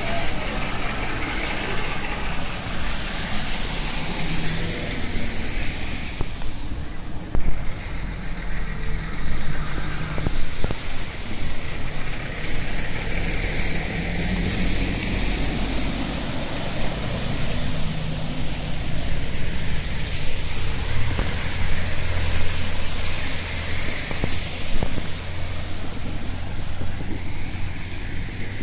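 Steady street noise of traffic on a flooded road, with a low rumble of wind on the microphone.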